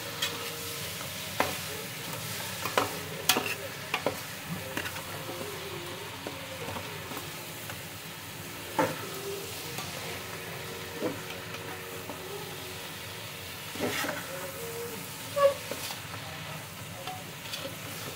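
Mixed vegetables and soya chunks sizzling as they fry in oil and masala in a large metal pot, with a metal ladle stirring and scraping through them and clinking against the pot now and then. The vegetables have just been added to the roasted masala.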